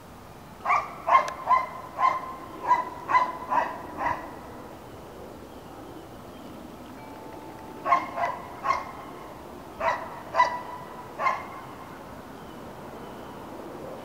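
A dog barking in two bouts of quick, sharp barks: about eight in the first four seconds, a pause, then about six more.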